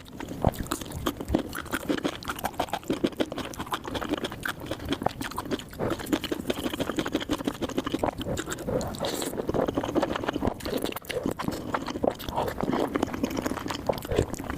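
A person chewing food close to the microphone: a dense, unbroken run of small mouth clicks.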